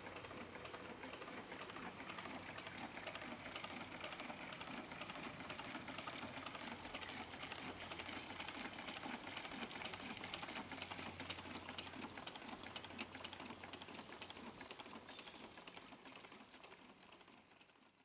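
Smallest 4-inch Rider hot air pumping engine running steadily, its mechanism making a fast, even run of clicks over a low hum. The sound fades out near the end.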